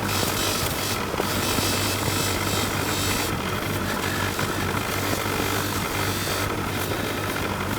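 A motor running steadily: a constant low hum under an even hiss, with no change in speed.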